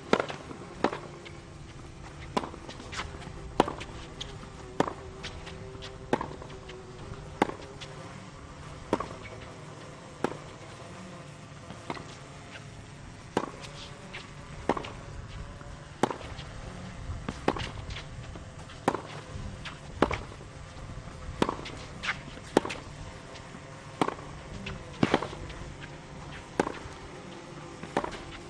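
Tennis ball struck back and forth by rackets in a long rally on a hard court, a sharp pop about every second to second and a half, with softer ball bounces in between.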